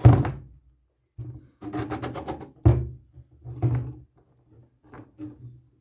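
A 3D-printed plastic carriage slid back and forth by hand on two steel smooth rods, its linear ball bearings rattling as it runs, with sharp knocks at the start and about two and a half seconds in.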